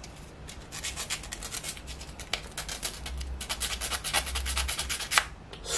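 Sandpaper rubbing back and forth on a small wooden rib piece of a 3D model kit, in quick, short scratchy strokes. It is a light sanding of the lower edge so the piece fits into its slot.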